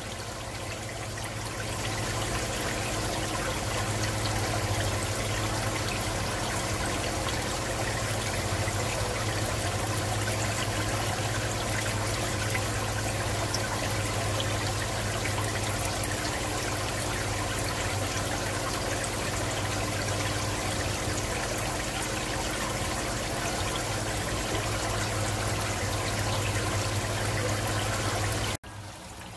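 Aquarium water trickling steadily, most likely a filter's return flow, over a steady low hum. It cuts off abruptly just before the end.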